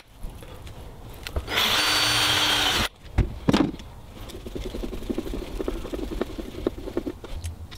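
Cordless drill driver running in one steady burst of just over a second as it drives a screw into the curtain fixing, cutting off abruptly. After it come a few knocks and light clicks of handling the fixings and screwdriver.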